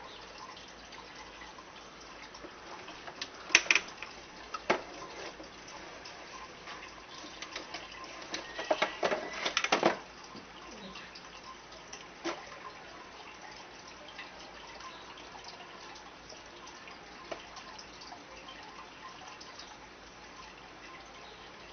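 Water trickling and dripping steadily, with scattered sharp clicks and knocks and a dense run of them from about eight to ten seconds in.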